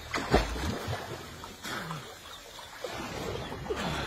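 Pond water splashing and sloshing irregularly as a person moves through it by hand, with a low thump about a third of a second in.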